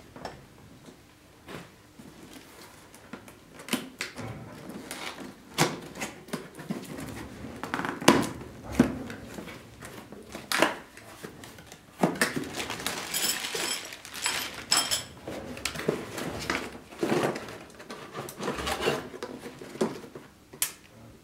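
Cardboard box and plastic packaging being handled and opened: irregular rustling and crinkling with scattered knocks and clicks. A longer spell of crisp crinkling comes a little past the middle.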